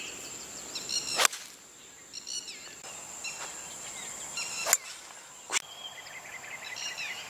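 Birds chirping over a steady high insect whine, broken by several sharp clicks; the loudest click comes about a second in.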